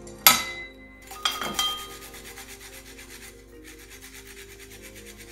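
Fresh ginger being rubbed on a flat stainless-steel grater in quick, even rasping strokes, about five a second, with a short pause partway through. Near the start come two sharp clinks that ring, as the metal grater knocks against the bowl.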